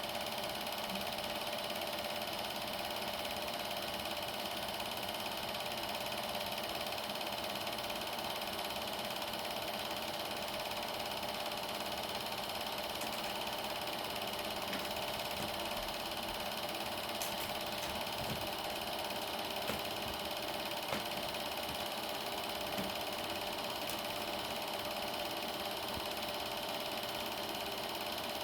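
Super 8 film projector running: a steady mechanical whir with a constant hum, and a few faint clicks near the middle.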